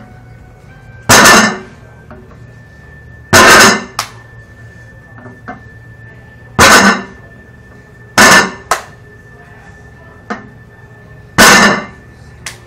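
A plate-loaded vertical deadlift bar set down hard on the floor again and again: five loud metallic clangs, each with a short ring, every two to three seconds, with lighter clinks of the plates between them.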